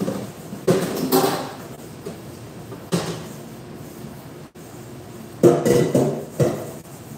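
Dishes and kitchenware clattering and knocking against a stainless steel sink and counter during washing-up, in bursts: about a second in, once at three seconds, and a louder run of knocks near the end.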